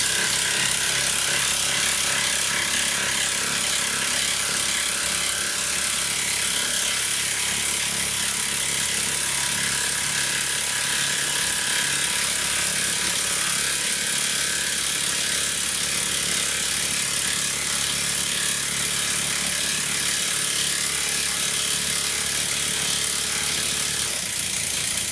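Makita 40V XGT cordless impact wrench hammering continuously under heavy load as it drives a 300 mm long, 12 mm diameter screw into stacked timber without a pilot hole.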